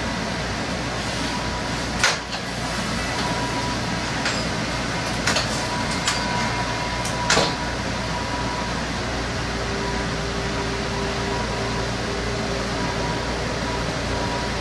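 Old streetcar running, heard from inside the cabin: a steady rumble and hum of the moving car. A sharp knock comes about two seconds in, and several lighter clicks and clunks follow over the next few seconds.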